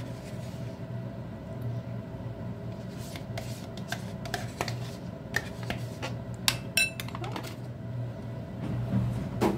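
Scraping of yogurt from a plastic tub into a ceramic bowl, with scattered light clicks and knocks and a brief ringing clink of a metal spoon against the bowl about seven seconds in. A steady low hum runs underneath.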